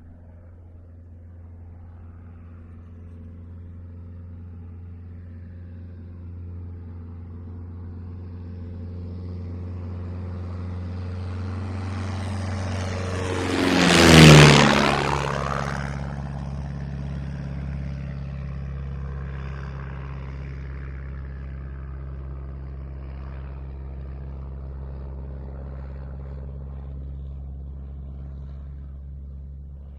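Single-engine propeller airplane flying past. Its steady engine drone grows louder, peaks about fourteen seconds in with a rush of noise as the engine pitch drops, then slowly fades as it moves away.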